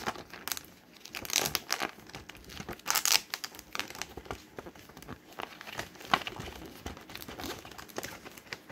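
Film and its paper backing crinkling and rustling as they are wound by hand onto a 122 roll-film spool, in irregular scratchy rustles with a few louder crackles.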